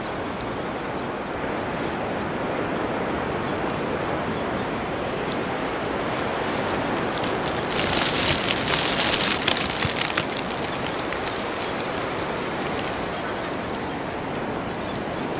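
Steady wind and sea-surf noise, with a louder stretch of crackling rustle about eight to ten seconds in.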